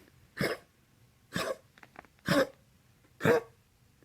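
Dog coughing in a regular series, four short coughs about a second apart.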